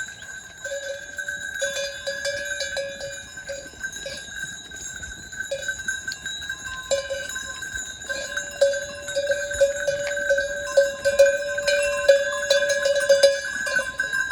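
Metal livestock bells clanking and ringing without a break as the animals move, with the clanks growing busier in the second half.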